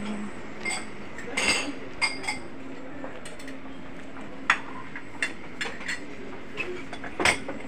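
Scattered light clinks and knocks of breakfast-buffet crockery, cutlery and glassware, a dozen or so separate strikes with the sharpest about four and a half seconds in and near the end, over a steady low room hum.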